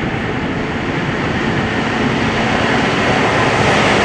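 Rail service vehicle running along the track in a railway tunnel: a loud, continuous rumble that grows steadily louder as it comes closer.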